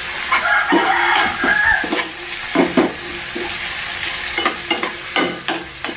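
Chopped onion and peppers sizzling in hot oil in a small metal frying pan, while a slotted metal spoon stirs them and scrapes the pan bottom in short strokes, several of them in pairs.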